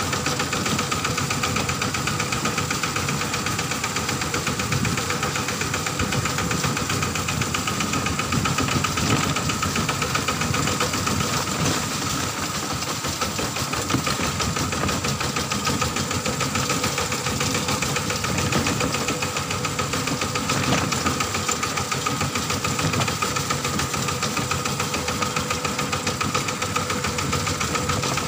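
Kubota ZT140 walking tractor's single-cylinder diesel engine running steadily while the tractor is driven, its firing strokes coming as a fast, even beat.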